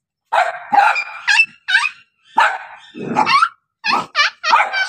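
A puppy yapping: a quick run of about a dozen short, high-pitched barks and yips, with one lower, rougher call about three seconds in.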